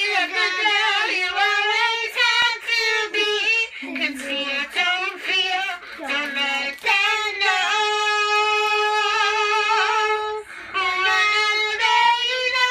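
Two young girls singing a song together, short phrases at first, then long held notes in the second half.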